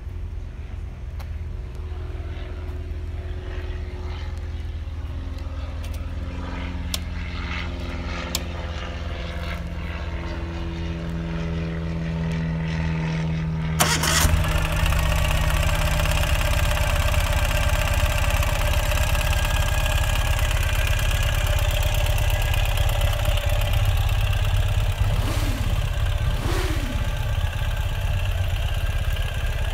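Ural Gear Up's air-cooled flat-twin engine idling with a steady low pulse. It gets suddenly louder about halfway through, and two quick throttle blips come near the end.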